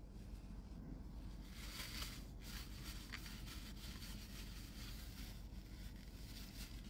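Faint crinkling rustle of a paper food wrapper being pulled open and handled, loudest about two to three seconds in, over a low steady hum.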